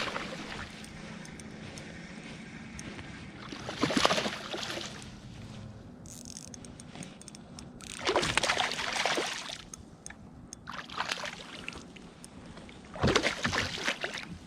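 Water splashing and sloshing beside a kayak in four short bursts, a few seconds apart, over a steady low water hiss, as a hooked largemouth bass is fought to the boat.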